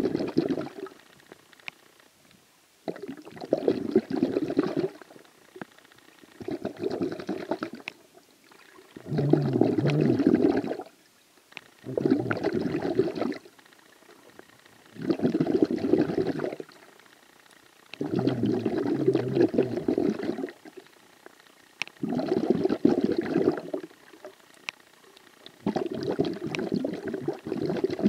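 Underwater breathing of the diver or snorkeler filming: regular bursts of exhaled air bubbling and gurgling past the camera, about one breath every three seconds.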